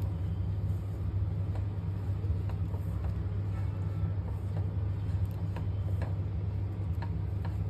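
A wooden spatula scrapes and stirs ground cashews and almonds in a kadhai, with faint scattered ticks over a steady low hum.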